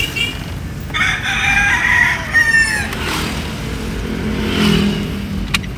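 A rooster crowing about a second in, over a low steady background rumble.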